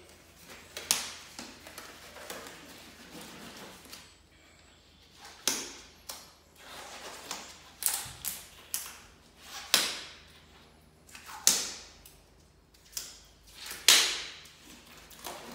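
Thin disposable gloves being pulled on and fitted to the hands: irregular sharp snaps with soft rustling between them.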